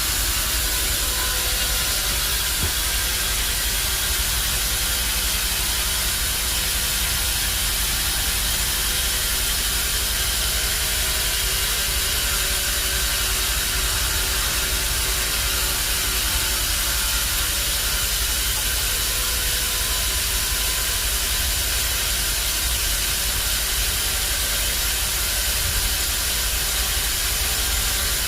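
Steady hissing machine noise with a low rumble, the sound of a sawmill's bandsaw and its machinery running.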